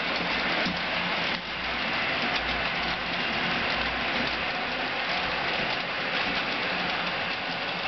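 HO-scale model freight cars rolling past on the track, their metal wheels making a steady rushing rattle on the rails with a faint low hum.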